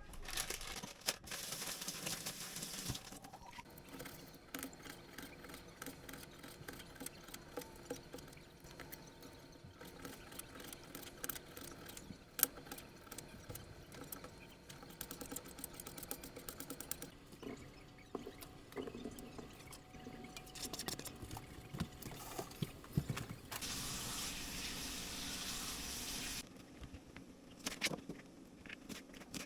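Kitchen preparation sounds: scattered clicks, knocks and clatter of utensils and containers being handled. A steady hiss comes in briefly near the start and again for about three seconds near the end.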